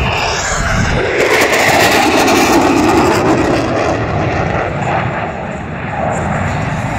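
Jet noise from an F/A-18E Super Hornet's twin GE F414 turbofans on a high-speed pass at about 700 mph. A loud rushing roar swells about a second in, peaks two to three seconds in, then eases off as the jet goes by.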